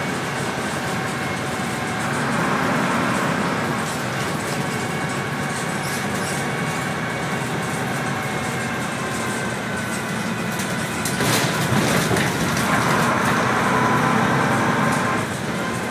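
Bristol VRT double-decker bus engine and drivetrain running as the bus drives, heard from inside the lower-deck saloon. The hum grows louder twice, about two seconds in and again from about eleven seconds until shortly before the end.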